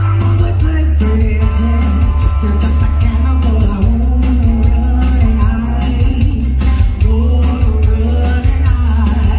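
Live rock band playing: a woman singing lead over electric guitars, bass guitar and a drum kit keeping a steady beat, with heavy bass.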